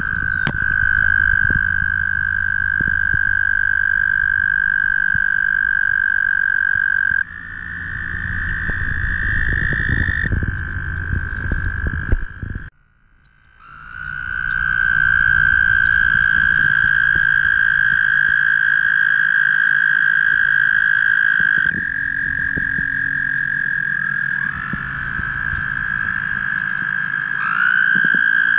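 Several American toads trilling: long, steady, high-pitched trills that overlap at slightly different pitches, the males' breeding call. The chorus breaks off for about a second near the middle, then resumes, and a new trill slides in near the end.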